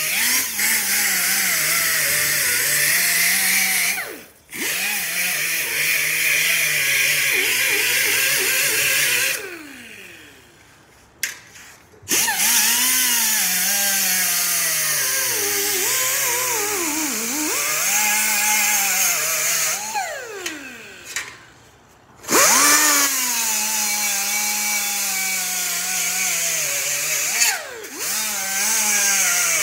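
Handheld rotary tool with a small wheel grinding against a metal bicycle fender: a motor whine that sags and recovers in pitch as it bears on the metal, with a high scraping hiss. Twice, about nine and twenty seconds in, it is switched off and spins down, then starts again a couple of seconds later.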